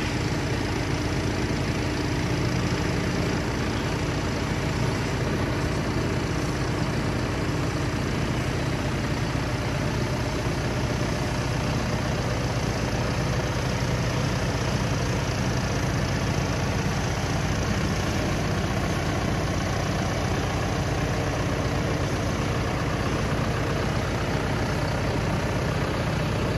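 John Deere 6125 tractor's diesel engine idling steadily, with no revving.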